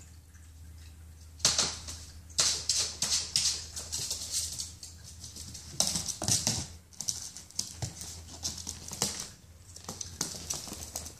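Miniature pinscher puppy scampering and pouncing on a hardwood floor: quick clicking patter of its claws in irregular bursts, mixed with rustling as it grabs at a fleece blanket.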